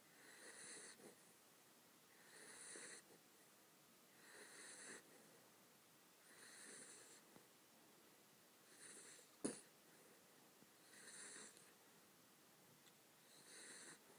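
Newfoundland puppy snoring quietly in its sleep, a wheezy snore about every two seconds. A single sharp click about nine and a half seconds in.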